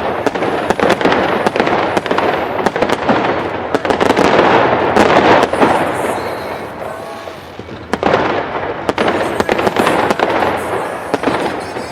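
Fireworks display: rapid bangs and crackling over a dense rumble, building to a peak in the middle and swelling again about eight seconds in.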